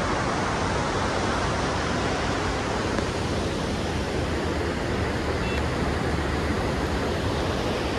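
Steady rushing of a mountain river and waterfall, an even noise with no breaks.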